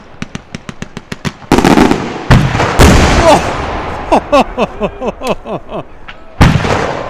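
Large aerial firework shells bursting: a fast run of sharp cracks, then four heavy booms, with people's voices calling out in between.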